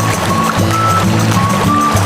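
Background music: an instrumental passage of a pop song, with a held melody line over a changing bass line and no singing.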